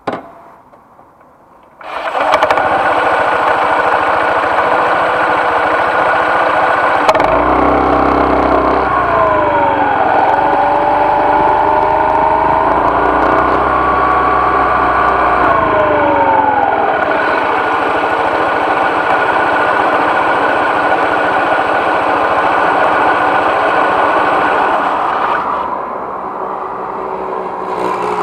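Honda PCX scooter's single-cylinder engine starting up about two seconds in and running loud and steady. In the middle it is revved, its pitch sliding down, then up, then back down.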